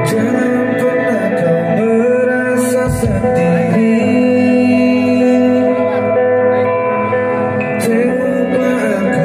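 Recorded music, a male voice singing over guitar and sustained instrumental tones, played loud and steady through a concert line-array PA system during a sound check.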